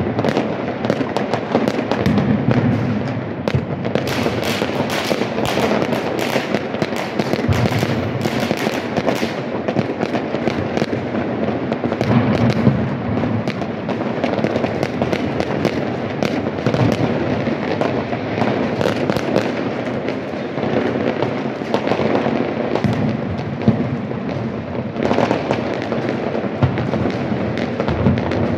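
Many fireworks and firecrackers going off at once across a city: an unbroken barrage of bangs, pops and crackles, thickest in the first third.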